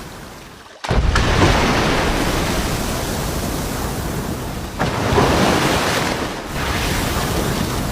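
Loud rushing water noise, like surf or churning sea, cutting in abruptly about a second in and surging again around five seconds.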